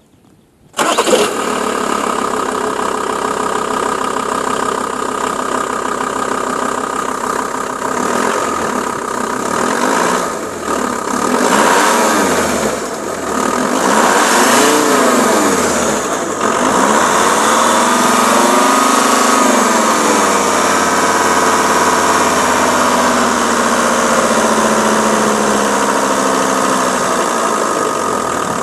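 Volkswagen Multivan's remapped 2.5 TDI five-cylinder turbo diesel starting about a second in and idling, then revved in several quick blips and one longer rise and fall before settling back to a steady run.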